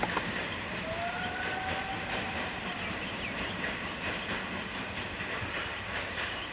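Indian Railways train running, with a steady rushing noise and faint clicks from the wheels. A faint, brief tone sounds about a second in.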